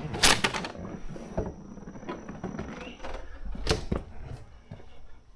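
A few sharp knocks and light clatter of things being handled, with the two loudest knocks about a third of a second in and near four seconds.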